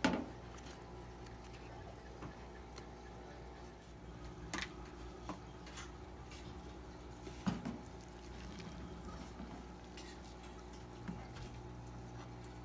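Light handling of a paper cup-noodle cup and its lid: a sharp click at the start, then a few scattered taps and knocks, over a steady low hum.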